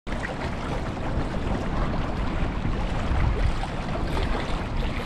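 Steady wind and water noise: an even rushing sound, heaviest in the low range, as from wind buffeting the microphone over open salt water.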